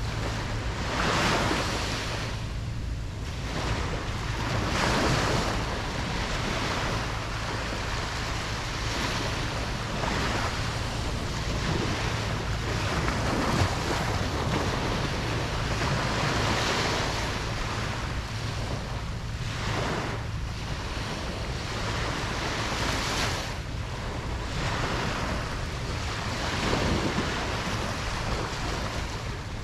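Ocean surf: waves breaking and washing up a beach, swelling and fading every few seconds in a steady wash of noise.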